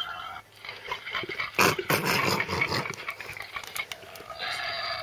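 Recorded wild boar grunts played from a children's sound book's button speaker, a rough, noisy sound loudest around the middle. Near the end a held hooting call begins, the owl page's recording.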